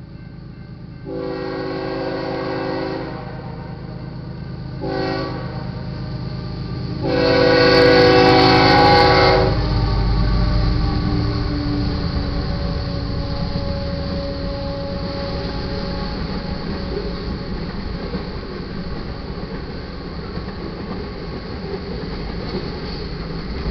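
BNSF GE ES44C4 freight locomotive's air horn sounding for a grade crossing: a long blast, a short one, then a final long, loudest blast. The locomotive then passes with a low rumble, and the freight cars roll by with steady wheel noise.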